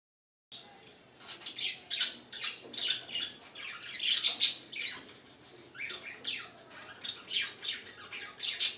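Bengali finches (society finches) chirping: a quick run of short, high, downward-sweeping calls, a few a second, with a brief lull midway.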